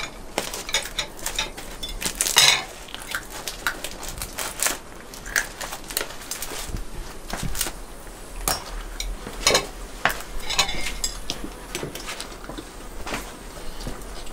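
Metal skewers and forks clinking and scraping on ceramic plates as grilled meat is pulled off the skewers, with scattered sharp clicks and a few brief ringing clinks.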